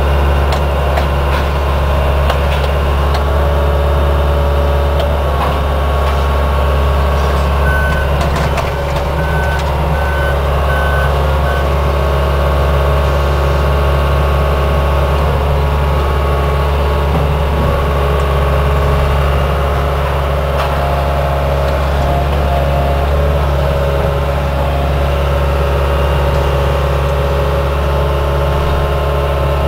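Small excavator's diesel engine running steadily under work, a loud low drone. About eight seconds in, a short run of five or so high alarm beeps sounds.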